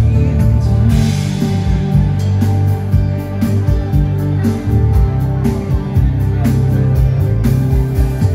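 Music with a band sound: steady bass notes, guitar and a drum kit keeping a regular beat.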